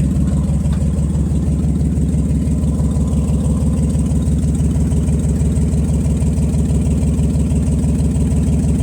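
Nissan 300ZX (Z31) V6 engine idling steadily just after its injectors and fuel rail were rebuilt, with a lot of exhaust leaks; the engine still has a misfire.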